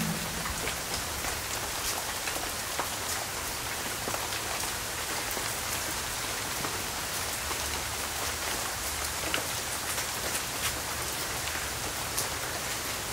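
Steady rain falling, an even hiss with many small scattered drop ticks.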